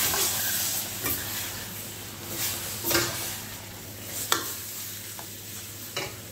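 Rice vermicelli stir-frying in a steel wok: steady sizzling, with the metal wok spatula and ladle scraping and knocking against the wok several times as the noodles are tossed.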